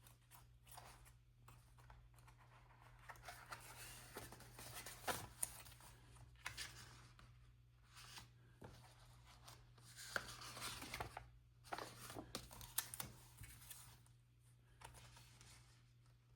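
Faint rustling and crinkling of paper sticker sheets being handled and leafed through, with a few small taps and light tearing-like sounds now and then.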